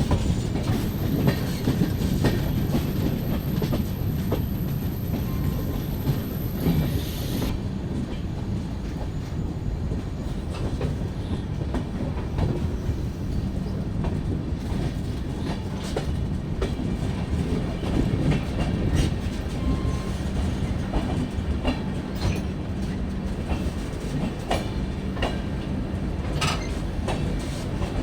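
Moving passenger train: the coaches' wheels give a steady rumble with the clickety-clack of wheels passing over rail joints.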